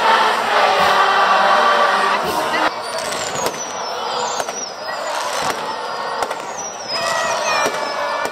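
A crowd singing together. From about three seconds in, fireworks go off over it: high whistles falling in pitch and sharp cracks, while the singing carries on underneath.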